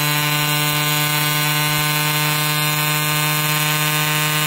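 Home-built 3D-printed three-coil brushless motor, delta-wired and driven by an electronic speed controller, running at a steady speed: a loud, steady tone with many overtones that holds one pitch.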